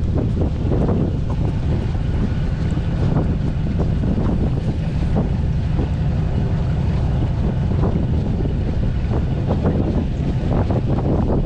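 Wind buffeting the microphone aboard a small fishing boat, over a steady low rumble, with frequent small knocks and crackles.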